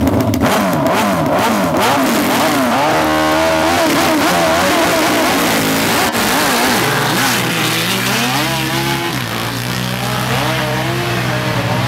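Sport ATV engines revving hard. The pitch rises and falls quickly at first, then climbs in longer sweeps that drop back, as the quads accelerate in a drag run.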